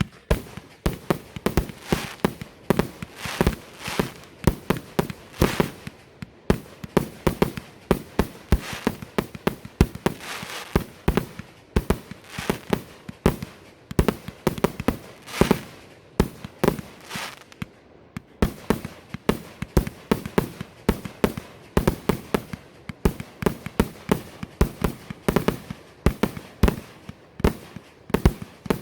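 Fireworks going off in a continuous barrage: sharp bangs and cracks several times a second, with no pause.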